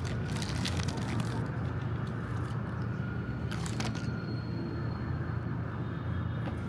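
Packaging crinkling and rustling in a few short spells, about a second in and again past the middle, over a steady low rumble.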